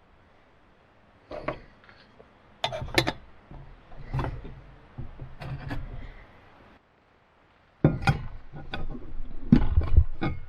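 Utensils and dishes being handled during food preparation: irregular knocks, clinks and clatters, with a brief silent gap about two-thirds of the way through and busier clatter near the end.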